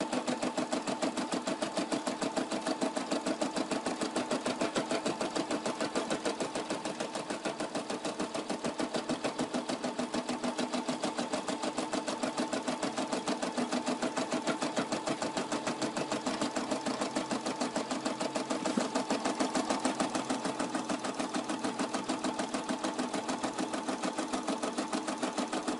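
Brother SE400 sewing-embroidery machine stitching out an embroidery design: a fast, steady rhythm of needle strokes.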